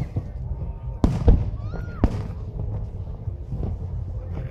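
Aerial fireworks display: shells bursting with sharp bangs, two close together about a second in and another at about two seconds, over a continuous low rumble.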